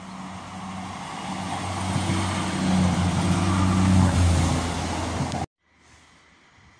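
Passenger train approaching and running beneath the bridge, a low steady hum with a rushing noise that grows louder, loudest about four seconds in as it passes underneath. The sound cuts off abruptly about five and a half seconds in, leaving only a faint background.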